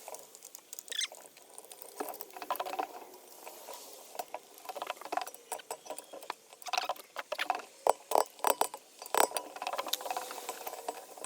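Irregular light clicks, scrapes and clinks of hands working on small parts and wiring of an air compressor motor, with a burst of sharper clicks near the end.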